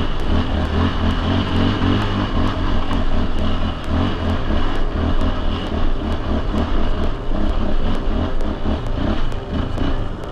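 ATV engine running under load while climbing a rocky dirt hill, with the throttle rising and falling.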